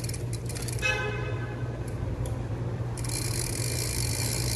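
Bicycle drivetrain ticking as the crank is turned during chain cleaning, with a short horn-like tone about a second in, then a steady high hiss from about three seconds on.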